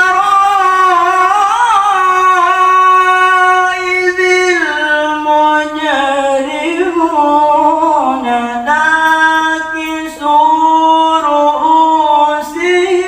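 A man chanting the Quran in melodic tilawah, Egyptian maqam style: long-breathed, ornamented phrases held on high notes that wind up and down. His pitch sinks lower about eight seconds in, and he takes a short breath about ten seconds in before rising again.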